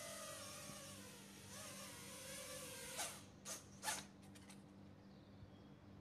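5-inch racing quadcopter's 2300KV brushless motors whining faintly, their pitch wavering up and down with the throttle. About three seconds in comes a quick cluster of sharp knocks as the quad crashes, after which the motors stop and only faint hiss remains.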